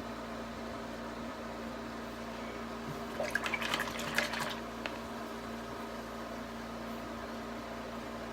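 Paintbrush swished and tapped in a jar of rinse water, a quick cluster of splashy clinks about three seconds in lasting a second and a half, over a steady electrical hum.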